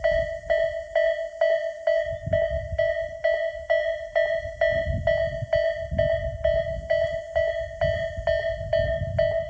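Japanese railway level-crossing alarm, an electronic bell of the Isesaki type, ringing steadily at about three strikes a second. A low rumble comes and goes underneath.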